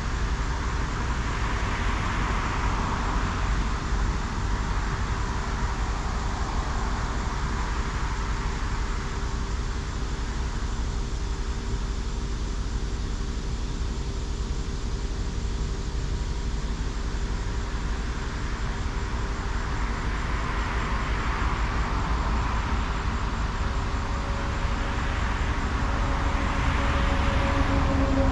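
Highway traffic: vehicles pass one after another, each one's tyre noise swelling and fading, over a steady low rumble. The last pass, near the end, is the loudest.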